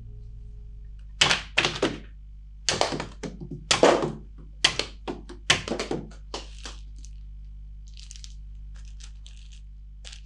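A run of about a dozen sharp knocks and cracks from cutting tests with a restored antique steel billhook, the blade striking through the targets. Fainter, crisper ticks follow near the end.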